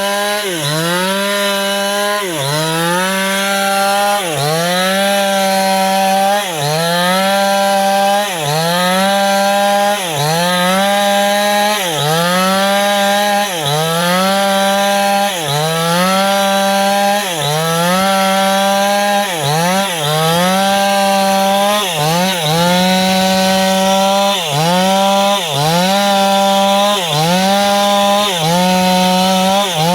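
New West 588 two-stroke chainsaw running at high revs while cutting wood. Its pitch drops and climbs back in a regular cycle, about every second and a half, as the chain is loaded in the cut and then eased.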